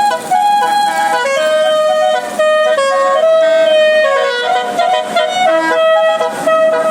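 Bus 'telolet' basuri multi-tone musical air horn playing a tune: a run of held horn notes stepping up and down in pitch, several notes a second, without a break.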